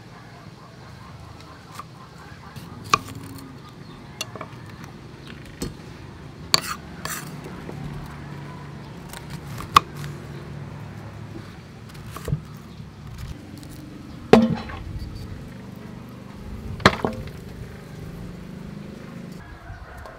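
Kitchen knife cutting cauliflower florets from the head on a wooden chopping board: scattered sharp knocks and clinks of the blade against the board and metal dishes, about eight in all.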